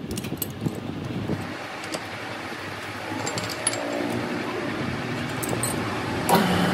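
Light metallic clinks and rattles of a steel gear being seated and clamped in a lathe's four-jaw chuck, over a steady workshop hum. Near the end a louder thump is followed by a steady low hum, as of the lathe motor starting.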